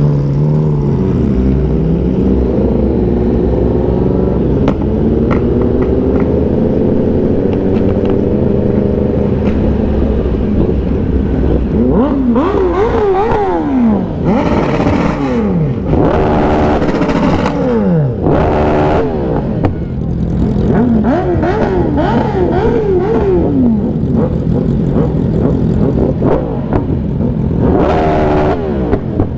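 Yamaha R1 sportbike's inline-four engine running at low revs, then revving up and dropping back several times as the bike pulls away and shifts through the gears. Short bursts of wind noise come and go.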